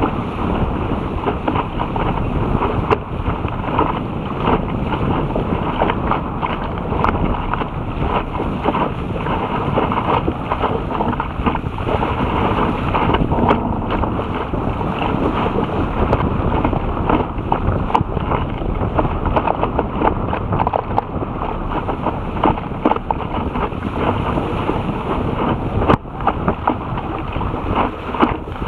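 Wind buffeting the microphone over the rush and splash of bow spray from a Topper Topaz dinghy moving at about 12 km/h through choppy water, with many small crackles.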